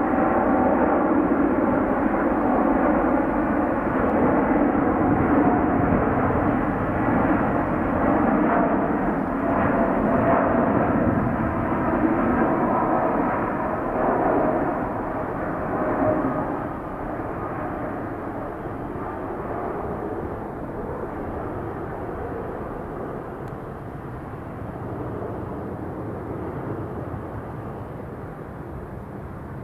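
Boeing 787-9 airliner's GEnx-1B jet engines at takeoff power during the takeoff roll, rotation and climb-out: a loud steady rumble with faint whining tones. It eases off gradually from about halfway through as the aircraft climbs away.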